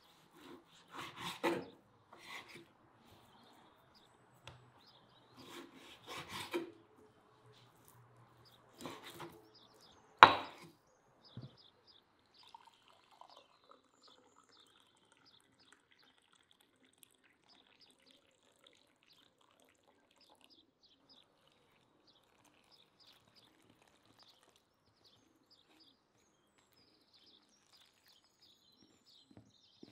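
Knife cutting raw meat into chunks on a wooden cutting board: a few scattered knocks of the blade against the board over the first dozen seconds, the loudest about ten seconds in. Then faint bird chirps.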